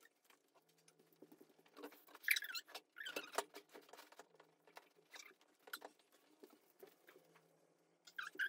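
Light rustling, scraping and clicking of clothing being handled while a jumpsuit's back zipper is worked, with a cluster of louder scrapes about two to three and a half seconds in.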